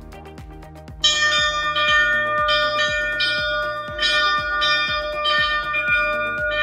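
Ceremonial bell on a stand, rung to mark a listing on the exchange, starting suddenly about a second in and struck again and again, about every half second to second, each stroke ringing on into the next. Background music with a steady beat runs underneath.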